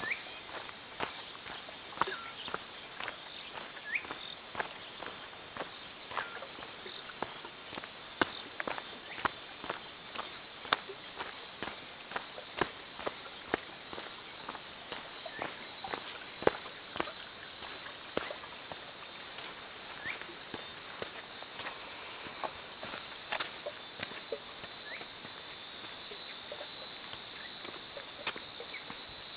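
Steady high-pitched insect chorus, with irregular footsteps on a dry dirt path beneath it.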